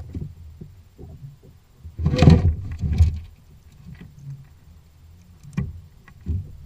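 Thumps and knocks on a kayak: a loud bump about two seconds in, another about a second later, then a couple of short sharp clicks near the end.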